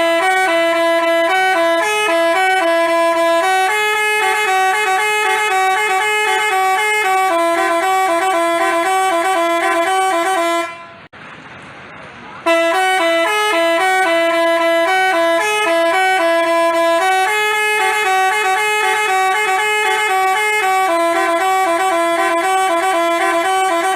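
Telolet multi-tone bus horn playing its tune as a run of quick, short notes. The melody breaks off near the middle for about two seconds, then plays again from the top.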